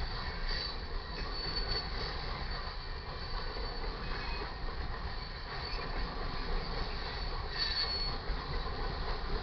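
Loaded coal hopper cars rolling past with a steady rumble and rattle, their wheel flanges squealing in short high-pitched flares, once about half a second in and again near the end.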